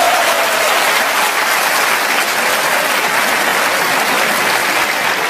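Audience applauding a snooker shot, steady dense clapping.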